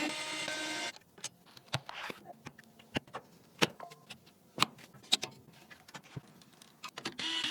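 Irregular sharp clicks and taps of computer parts being handled and fitted together during a PC assembly. A short stretch of music ends about a second in.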